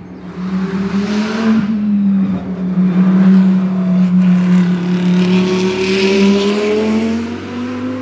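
A race car's engine running hard at high, nearly steady revs, growing louder through the middle and easing off near the end as the car passes out of sight.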